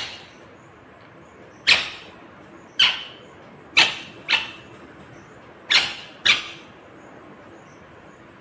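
Green ringneck parakeet giving short, shrill calls, about six of them, some in quick pairs half a second apart.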